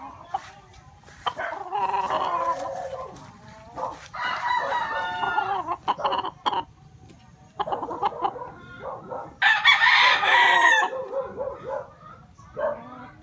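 Roosters crowing repeatedly, one call after another; the loudest crow comes about ten seconds in.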